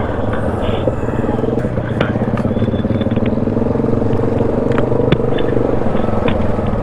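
ATV engine running at a steady trail speed while riding, with scattered sharp clicks and knocks over the drone.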